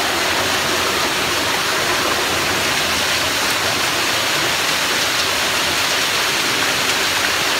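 Waterfall pouring into a rock pool: a loud, steady rush of falling and splashing water.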